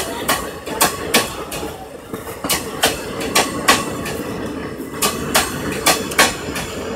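Passenger coaches of an Indian Railways express rolling past at speed, their wheels going clickety-clack over the rail joints. Sharp clacks come in quick twos and threes over a steady rumble.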